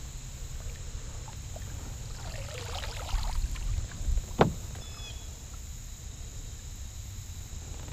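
A kayak moving on a pond: water swishing around the hull and paddle, with one sharp knock against the kayak about four seconds in, as a downed Canada goose is hauled aboard.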